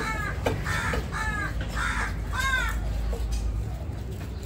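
Crows cawing: a run of about five harsh caws in the first two and a half seconds, over a low steady background rumble.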